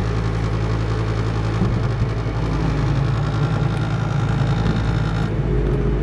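Carrier 90+ gas furnace's draft inducer motor running with a steady hum during the ignition sequence; about two seconds in the sound shifts as the propane burners light.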